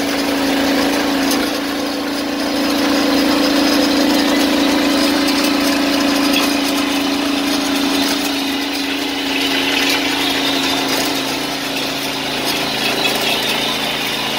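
An engine running steadily, with a strong steady hum in its sound that fades away about eight seconds in while the engine noise carries on.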